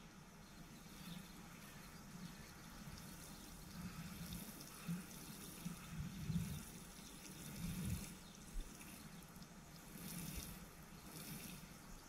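Faint shower of water falling from the rose of a plastic watering can onto bare, freshly dug soil, swelling several times as the can is tipped and moved along the bed.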